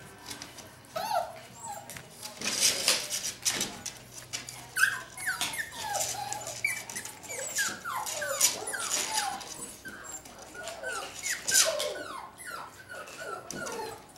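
A litter of eight-week-old puppies whining and yipping in many short, falling squeals. Their paws scrabble against the board of the pen in sharp, noisy bursts.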